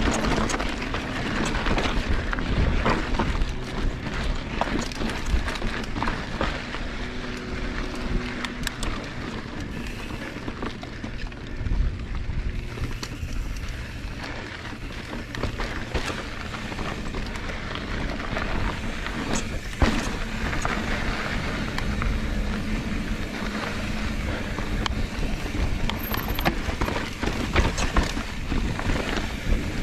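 Mountain bike riding over a rough rocky trail: tyres rolling and crunching over rock, with frequent sharp knocks and rattles from the bike and a steady rumble.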